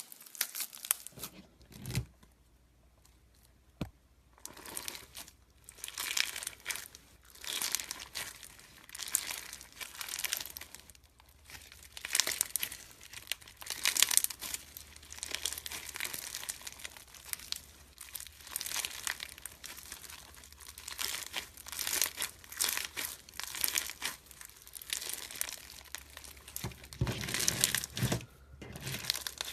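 Slime being squished and worked, giving bursts of crackly, sticky popping and clicking. There is a short near-quiet pause about two seconds in.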